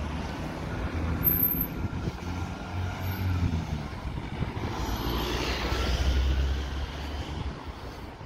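Road traffic on a town street. Vehicle engines run as they pass close by, and one vehicle swells up and fades away about five to six seconds in.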